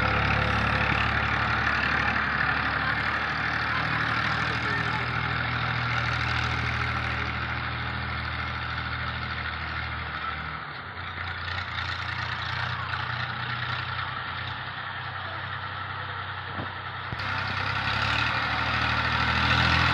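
Massey Ferguson tractor's diesel engine running steadily as it pulls a cultivator through a field. It grows fainter about halfway through as the tractor moves off, and louder again near the end as it turns back.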